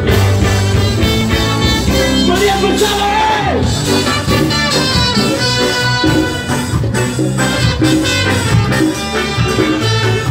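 Ska band playing live and loud: a horn section over electric guitars and a driving rhythm section, with a steady upbeat pulse.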